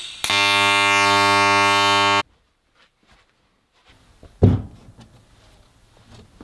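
TIG welding arc running steadily for about two seconds, then cutting off sharply. A couple of seconds later, a single heavy thump as the metal piece is set down on the wooden workbench.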